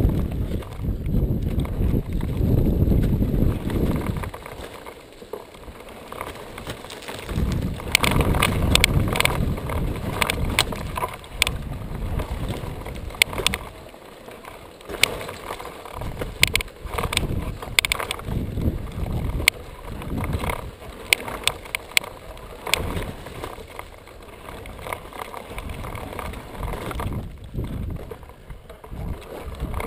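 Wind buffeting a helmet-mounted camera microphone in uneven gusts. From about eight seconds in come many scattered clicks and crunches of loose dirt and rock.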